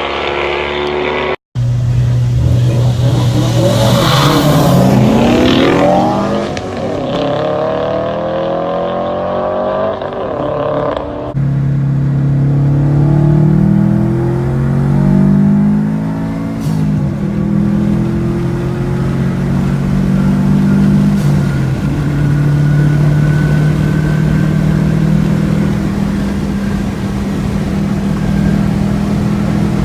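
Street-racing cars accelerating hard, their engines revving up and dropping in pitch at gear shifts, with a car passing by a few seconds in. A short dropout about a second and a half in and an abrupt change near eleven seconds mark joins between clips.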